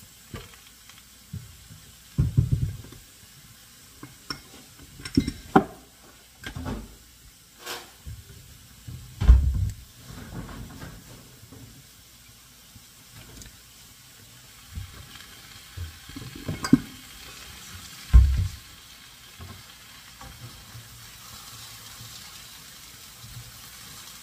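Cooking sounds at the stove: mushrooms sizzling faintly in a skillet, the sizzle a little stronger in the second half, with scattered sharp knocks of utensils and pans and a few heavy thuds against the stovetop or counter.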